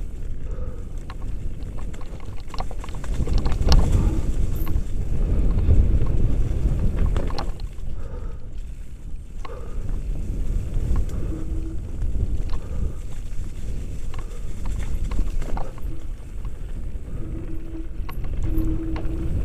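Mountain bike riding fast down a rough dirt and leaf-litter singletrack, heard from a helmet-mounted camera: tyre rumble and wind buffeting on the microphone, with constant knocks and rattles from the bike over stones and roots. A brief steady hum comes in a few times near the end.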